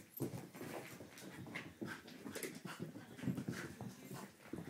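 Border terrier racing around in a burst of zoomies: a rapid, irregular run of paw thuds and scrabbling on carpet and sofa, with the dog's panting.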